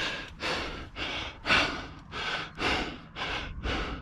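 A climber breathing fast and hard from the exertion of the climb, about two breaths a second.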